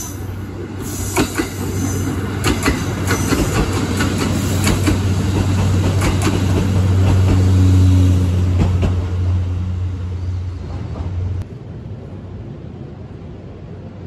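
JR Central Kiya 95 'Doctor Tokai' diesel inspection train passing close by: a steady low diesel engine hum under a run of sharp wheel clicks over rail joints, loudest about eight seconds in. The sound cuts off suddenly about eleven seconds in, leaving a quieter background.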